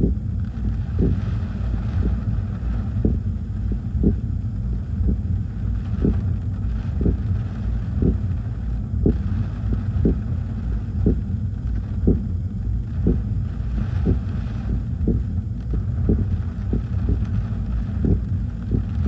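Gusty storm wind buffeting the microphone: a steady, fluttering low rumble that swells with the gusts, with a short pop about once a second.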